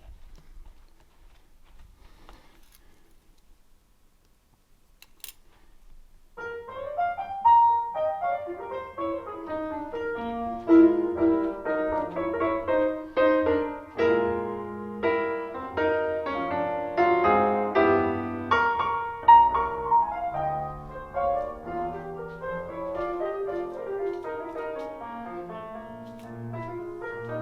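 Piano music played back over a home stereo, starting about six seconds in after a few quiet seconds.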